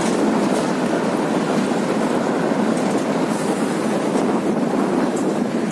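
Scania 164's V8 diesel engine running with a steady, loud rumble as the tanker truck drives along.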